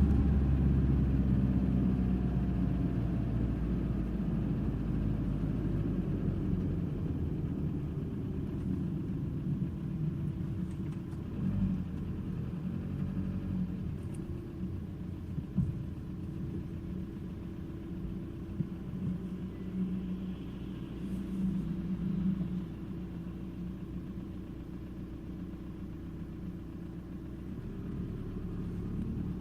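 Audi A3 1.9 TDI (ASV) four-cylinder turbodiesel engine running steadily with a knock that the owner suspects comes from bad hydraulic lifters (tappets).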